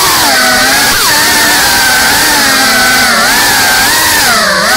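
GEPRC CineLog35 cinewhoop FPV drone's four brushless motors and ducted propellers whining in flight. The pitch swings up and down constantly with the throttle, with a deep dip near the end before climbing again.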